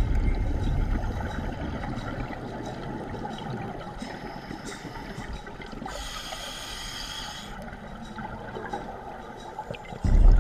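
A scuba diver breathing through a regulator, heard underwater through a camera housing. It opens with a loud rumble of exhaled bubbles that fades out. About six seconds in comes a hiss of inhalation through the regulator, and just before the end the next exhalation's bubble rumble starts.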